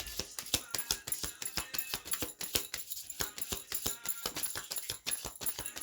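Rapid, irregular rattling clicks over faint background music.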